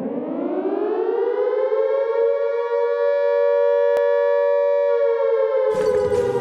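Civil defense siren sound of a homemade emergency alert alarm winding up in pitch, holding a steady two-tone wail, then starting to wind down near the end. A burst of rushing noise joins it for the last second, and a faint click is heard about four seconds in.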